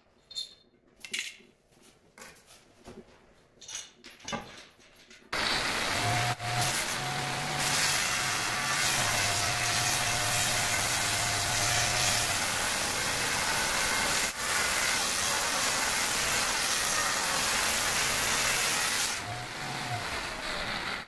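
Large angle grinder cutting a strip of marble: a few seconds of faint handling clicks, then about five seconds in the grinder starts and cuts steadily through the stone, loud with a motor hum under the grinding noise, easing off near the end before it stops.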